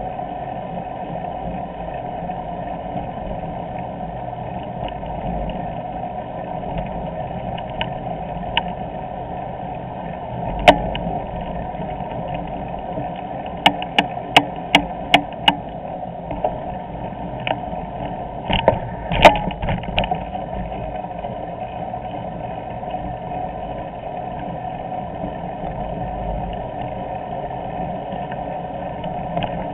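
Steady riding noise of a bicycle rolling along a paved bike path, picked up by a handlebar-mounted camera. Sharp knocks from jolts over the paving: a loud single knock about a third of the way in, a quick run of about six a few seconds later, then a short cluster.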